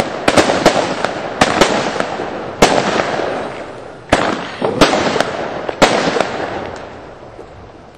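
Fireworks going off: a rapid, irregular string of sharp bangs with a continuous crackling rumble between them, thinning out and fading away over the last couple of seconds.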